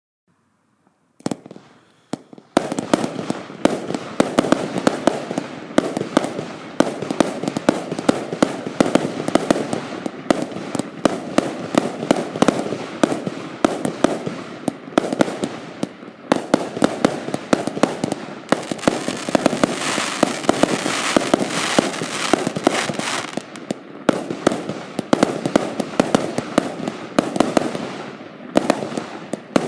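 Absolute Fireworks Pyro Junkie firework going off: a single crack about a second in, then from about two and a half seconds a fast, unbroken run of sharp bangs and crackles, with a stretch of hissing crackle about two-thirds of the way through.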